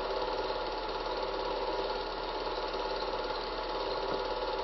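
A small motor running with a steady mechanical whirr that keeps an even pitch and level throughout.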